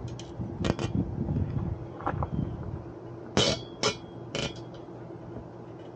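Zip ties being pulled tight around a cable on a steel mast pole: a handful of short, sharp clicks and knocks, the loudest cluster about three and a half seconds in.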